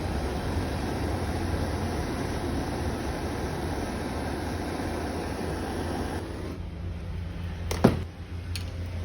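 Steady mechanical hum with a hiss that drops away about six seconds in, followed by a single sharp knock near the end.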